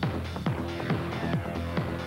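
Electronic dance music with a steady, fast kick-drum beat, a little over two beats a second, over held notes.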